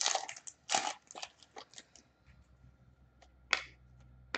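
Plastic wrapper of a hockey card pack being torn and crinkled open, a rapid run of crackles over the first two seconds. A few short flicks and rustles follow as the cards are pulled out and handled.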